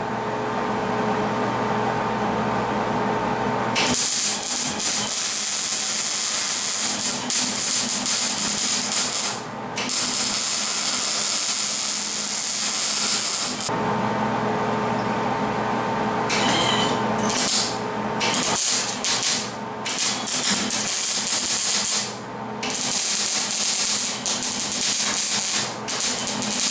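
Electric arc welding on a steel frame: several runs of steady sizzling crackle, each lasting a few seconds. Between them are short pauses in which a steady low hum is heard.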